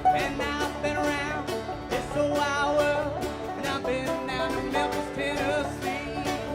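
String band music in a bluegrass style: rapid banjo and guitar picking with a wavering melody line on top.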